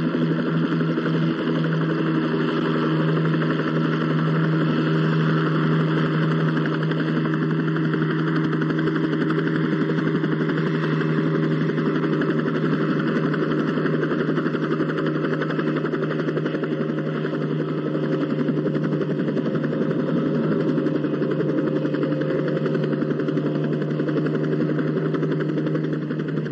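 Light helicopter's engine and rotor running steadily, a loud unbroken drone.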